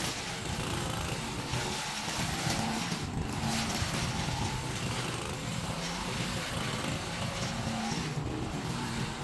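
Small gasoline engine of lawn-care equipment running steadily under load, its pitch wavering slightly, with a constant noisy whir over it.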